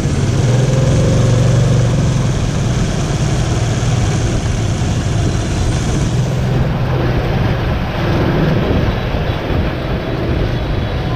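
Motor scooter engine running steadily while riding, with road and wind noise.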